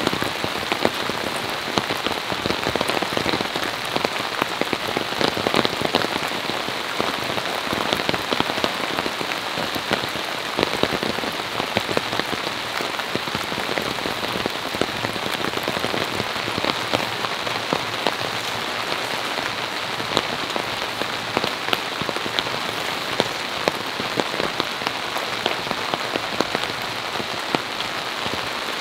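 Steady rain falling, with many sharp individual drops striking close by.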